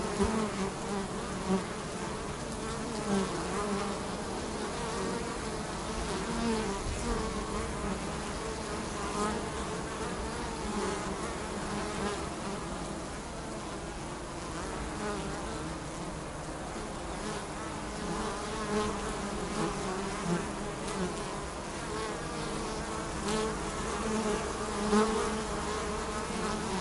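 Honey bees buzzing at a hive entrance: a steady, wavering hum from many bees, with brief louder buzzes now and then.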